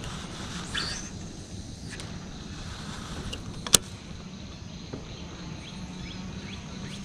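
Baitcasting reel being reeled in over a steady low hum, with one sharp click a little under four seconds in.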